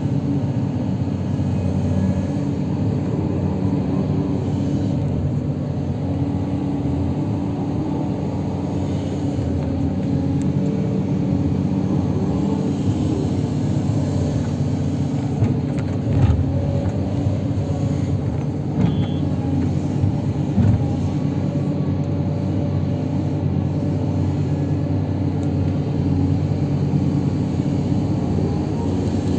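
Heavy diesel construction machine engine running steadily, with a few short knocks about halfway through.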